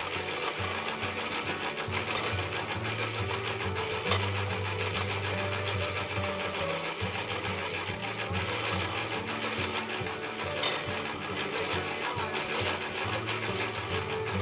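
Antique hand-cranked apple grinder on a wooden cider press, its flywheel turning as apples are fed in and chopped: a steady mechanical clatter.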